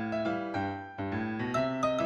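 Background music: a slow, gentle keyboard melody of single sustained notes.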